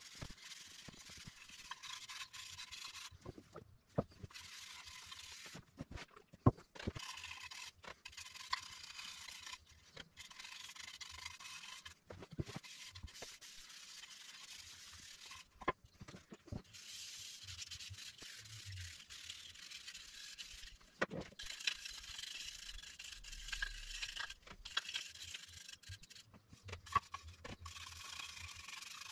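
Hand rubbing or scraping on a wooden box, in long passes of a few seconds each with short pauses between, and now and then a light knock.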